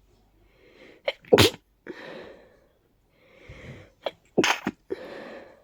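Two sneezes from a person stuffed up with allergies, one about a second and a half in and one about four and a half seconds in. Each starts with a gasping in-breath and a short catch, then comes a loud, sharp burst and a breathy exhale.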